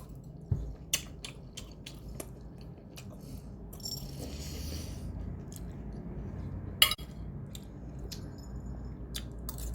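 Cutlery clicking and clinking against a dish in scattered taps, with a short rustle about four seconds in and a sharp clink near seven seconds.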